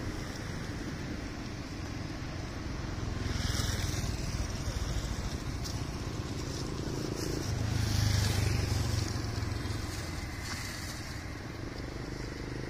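Road traffic: vehicle engines running steadily, swelling twice as vehicles pass, about four seconds in and again about eight seconds in.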